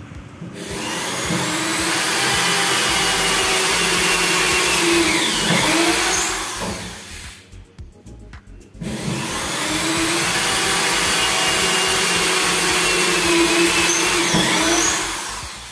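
Corded electric drill boring holes into a door for a fitting, in two long runs of the motor: one for about six seconds, a short pause, then a second run of about six seconds.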